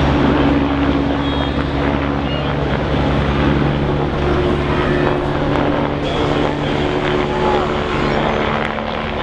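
A steady engine drone with a constant low hum, over the background hubbub of a large outdoor crowd.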